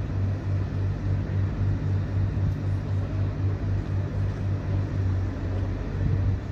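Diesel lorry engine idling: a low, steady hum that throbs about four times a second.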